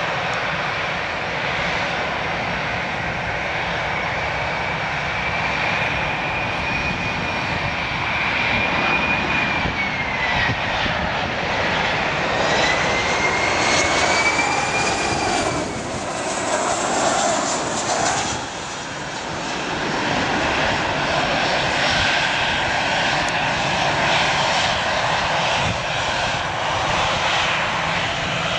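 Jet2 Boeing 737-300's CFM56 turbofans on final approach, a steady jet roar with a high fan whine that holds, dips and climbs again as the plane draws near. About two-thirds of the way in the sound sweeps and briefly drops as it passes close by, then the roar carries on.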